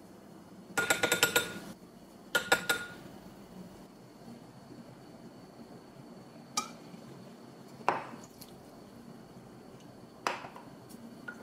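Wooden spoon tapping against the rim of a glass jar: two quick runs of ringing taps in the first three seconds, then a few single clinks on the glass.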